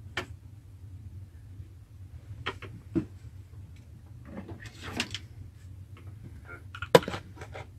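Scattered handling knocks and clicks as a person shifts and reaches among stored items, with a rustle about five seconds in and the sharpest knock near the end. Between them is a faint sound that the investigators mark as a faint voice.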